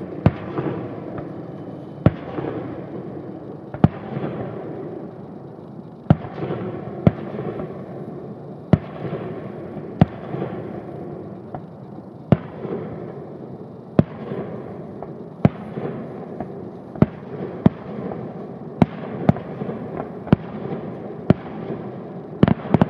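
Aerial fireworks shells bursting, a sharp bang every second or two, with a continuous rumble between the bangs. A quick pair of bangs comes near the end.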